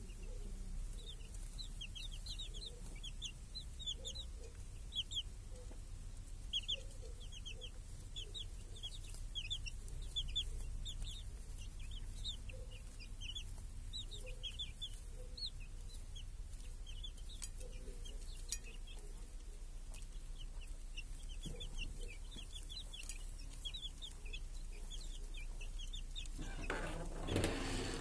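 Chicks peeping in quick runs of short, falling chirps, with a hen giving occasional low clucks. Near the end a louder rustling, scratching noise rises over them for a second or so.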